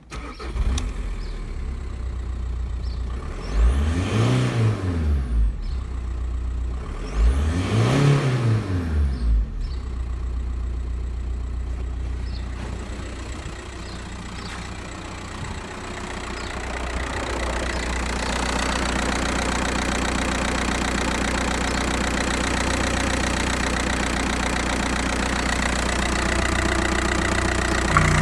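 Skoda Fabia's 1.9 TDI (AXR) four-cylinder turbo-diesel starting, revved up and let back down twice within the first ten seconds, then idling steadily.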